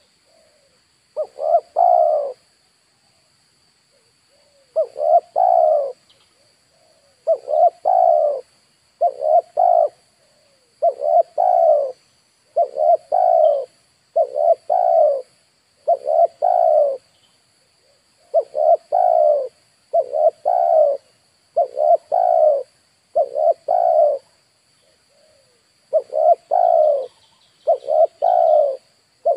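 Spotted dove cooing over and over, a short rough-edged coo phrase every second or two, after a pause of about four seconds at the start.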